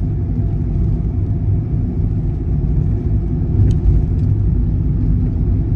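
Steady low rumble of a moving car's engine and tyres, heard from inside the cabin while driving. Two faint clicks come a little after halfway.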